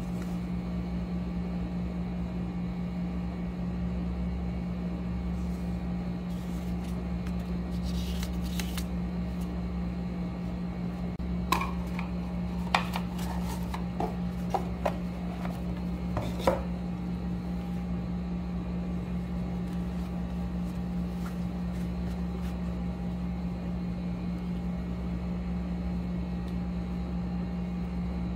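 A steady low hum throughout. About halfway through comes a brief rustle, then a few seconds of light clicks and taps as a cardboard watch presentation box is handled.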